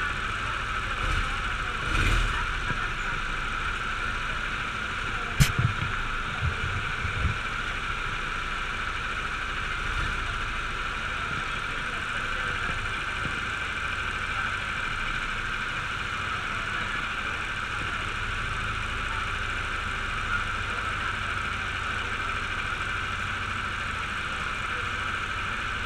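Go-kart engines idling steadily, with a few short knocks about two seconds in and again around five to seven seconds in.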